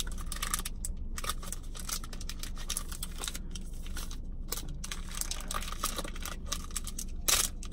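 Candy bar wrapper being torn open and crinkled by hand: a run of quick rustles and tears, with one louder rip near the end.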